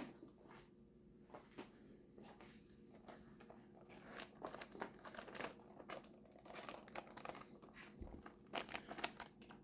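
Faint crinkling and rustling of packaging being handled, with scattered small clicks, mostly from about three seconds in.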